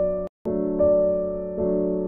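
Slow instrumental background music: sustained keyboard chords, with new notes coming in about every second. Broken by a very brief cut to silence about a third of a second in.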